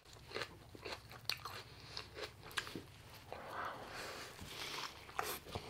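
Biting into and chewing a McDonald's chicken burger: a run of short crackly crunches with wet mouth sounds as the bun and chicken are bitten and munched.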